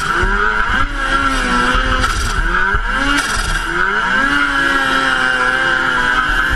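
Turbocharged engine under hard acceleration uphill. Its pitch climbs and drops several times, as with quick gear changes, then holds steady for the last few seconds, over a constant high whine from the turbo.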